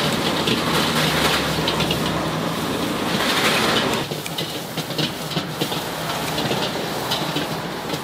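Kitchen scissors snipping through raw prawn shell and legs, a run of short crisp clicks, over a steady loud background rumble and hiss that eases about four seconds in.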